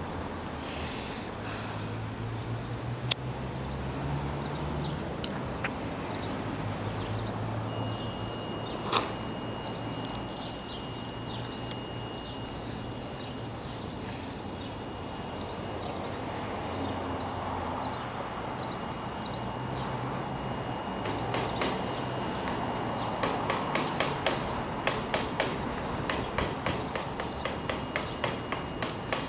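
Outdoor station-platform ambience: a steady low rumble under a short high chirp repeating evenly about twice a second. A couple of single sharp clicks stand out, and from about two-thirds of the way in comes a quick, irregular run of sharp taps.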